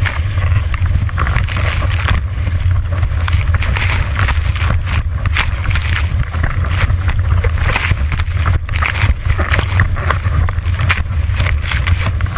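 Wind buffeting a GoPro mounted on a windsurfing boom, a heavy rumble over the hiss and splash of spray and chop from the board planing at speed. The loudness gusts and swells unevenly throughout.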